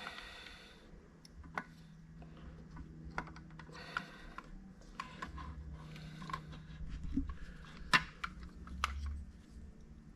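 Irregular light clicks and knocks of hand tools and metal parts being worked during tractor repair, the sharpest knock about eight seconds in, over a steady low hum.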